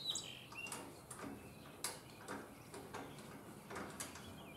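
Faint, irregular clicks and taps of hand work on a walk-behind mower's drive-belt tensioner as a wing nut is loosened.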